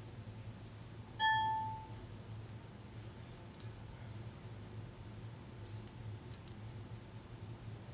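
A single short electronic chime: one clear note that rings and fades within about half a second, about a second in, over a faint steady low hum. A few faint ticks follow later.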